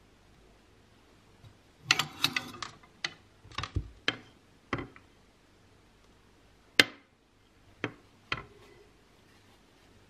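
Clothes hangers clicking and knocking against a closet rail and each other as hanging garments are moved: a quick run of clicks about two seconds in, then single clicks at uneven intervals.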